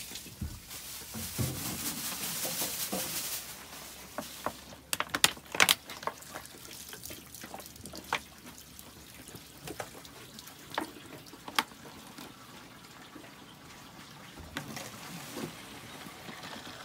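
Spring water running from a thin metal spout into a plastic PET bottle, louder and rushing for the first few seconds, then a steadier trickle. Sharp plastic clicks and knocks from the bottles being handled, loudest around five seconds in.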